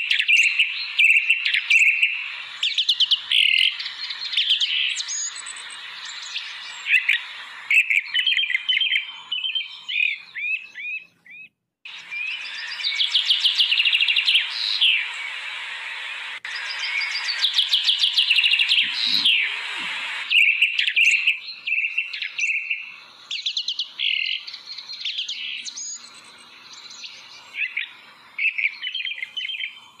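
Several small songbirds chirping and trilling in a busy, overlapping chorus of quick high notes, with a brief break about twelve seconds in.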